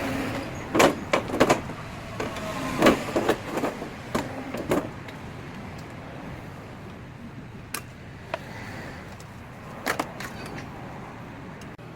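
A quick run of sharp knocks and clanks, then a low steady hum with a few single knocks.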